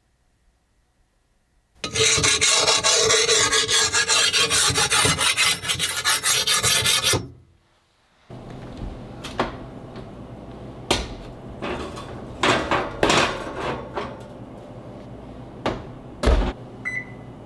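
An HRC60 hardness-testing file scraped hard and steadily along a hardened leaf-spring steel sword blade for about five seconds, testing whether the steel is hard. After a pause, a few clicks and knocks and one heavy thump as a kitchen oven door is handled, with a short electronic beep near the end.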